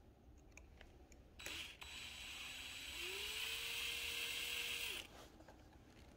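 Small electric screwdriver running as it drives a wood screw into the block. It starts about a second and a half in with a short blip, then runs at a lower pitch. About three seconds in the pitch rises and holds steady until the motor stops about five seconds in.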